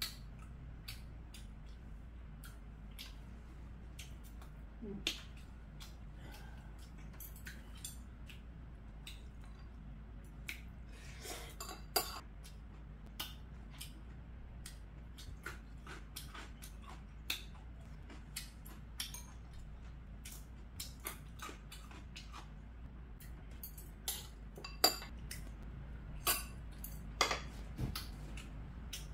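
Metal chopsticks and a metal spoon clicking and scraping against ceramic and glass bowls, in scattered sharp clinks that come more often and louder near the end.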